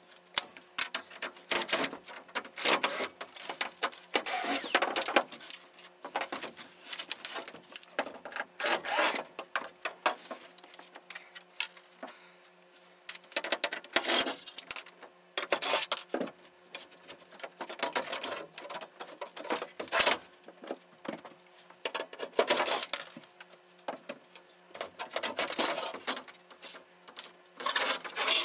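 Irregular scraping, clicking and knocking as parts of a model railroad layout are taken apart and handled.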